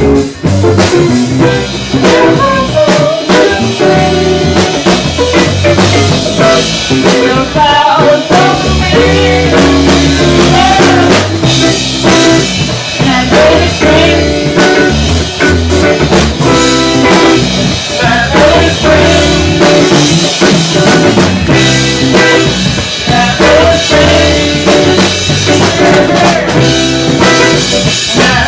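Live jazz-funk and hip-hop band playing: drum kit, electric guitar and bass, loud and continuous.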